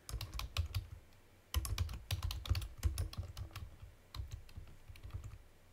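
Typing on a computer keyboard: a short run of keystrokes, a pause of about a second, then a longer run of keystrokes that stops shortly before the end.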